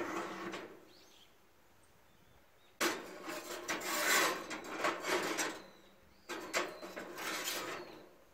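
Toaster oven door dropping open with a sharp click, then a steel knife blank scraping and rattling across the oven's wire rack in two long bouts as it is pushed in with tongs.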